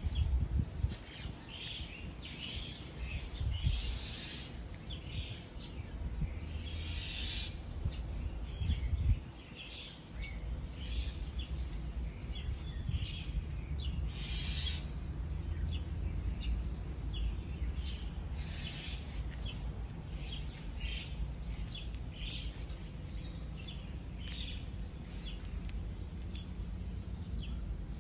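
Small birds chirping: many short, high calls, often several a second, over a steady low rumble on the microphone.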